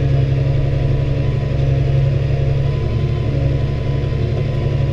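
New Holland T6030 tractor's diesel engine running steadily, heard from inside the cab.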